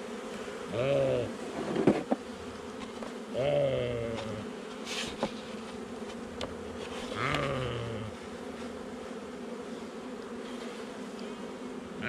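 Honeybees buzzing steadily at the hive, with a sheep bleating three times and a couple of sharp knocks about two seconds in.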